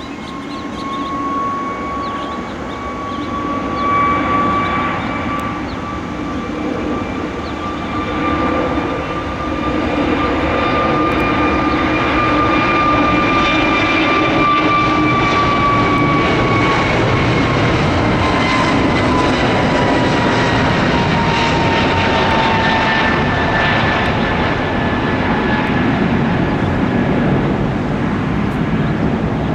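Airbus A320neo's turbofan engines at takeoff power: a loud rumble with a high whine. The sound builds over the first ten seconds, and about halfway through the whine slides down in pitch as the jet passes.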